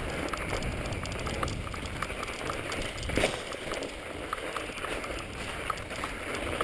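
Mountain bike ridden over a snow-covered trail: a steady rough noise of tyres on snow with scattered small clicks and rattles from the bike, and a louder knock about three seconds in.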